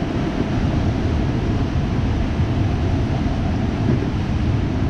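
Steady rushing of the Potomac River's waves and rapids, a constant noise heaviest in the low rumble, with no break or distinct event.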